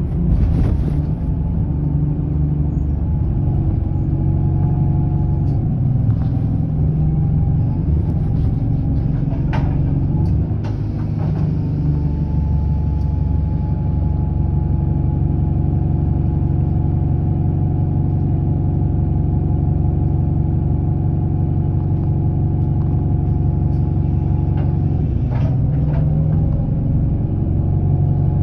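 ADL Enviro 200 single-deck bus with a Voith automatic gearbox, its engine and driveline running with a steady low drone and a higher steady whine. The pitch shifts slightly a little before halfway and again near the end. A few short knocks and rattles sound over it.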